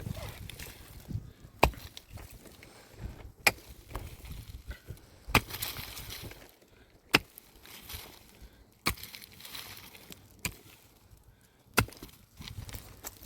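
Repeated chopping strikes of a heavy hand tool, one about every two seconds, seven or eight in all, with some scraping and rustling between them.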